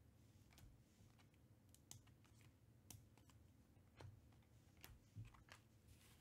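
Faint, irregular clicks and short scrapes of glossy Panini Prizm trading cards being handled by hand, flicked off a stack and set down one at a time; the clearest come about four and five seconds in.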